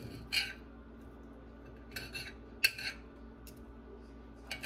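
Steak knife and fork scraping and clinking against a ceramic plate while cutting a cooked ribeye steak, in four short strokes, the loudest near the middle.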